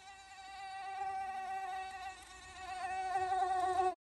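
Mosquito whining in flight: the steady, high-pitched buzz of its wingbeats. It swells louder twice and cuts off suddenly near the end.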